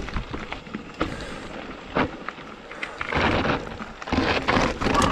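A mountain bike knocking and scraping over rock on a failed attempt at a steep technical line, with many sharp knocks and two longer bouts of scraping noise about three and four seconds in.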